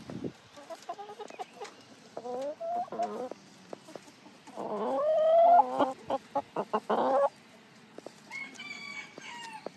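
A flock of chickens calling and clucking. The loudest is a long rising call about five seconds in that breaks into a quick run of short clucks, with shorter calls before it and again near the end.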